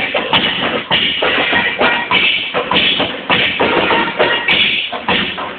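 Turkish folk dance music led by a large drum beating a brisk, steady rhythm of about three or four strokes a second.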